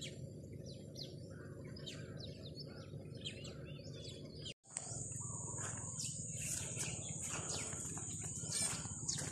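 Many small birds chirping: short, quick, falling calls one after another. About halfway the sound cuts out for an instant. It resumes with a steady high-pitched whine under the chirps and the scuffing of footsteps on a dirt path.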